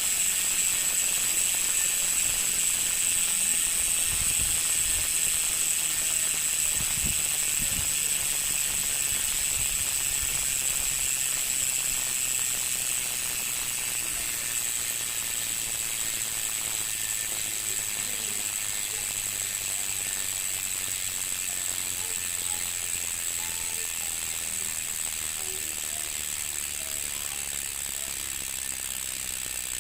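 Koozer XM490 Pro bicycle rear hub freewheeling: its pawls click so fast they blend into a steady buzz. The buzz slowly drops in pitch and gets a little quieter as the spinning wheel coasts down.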